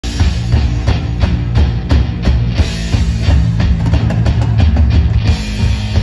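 Live ska band playing loud through a stage PA, with steady drum-kit hits and a heavy bass low end.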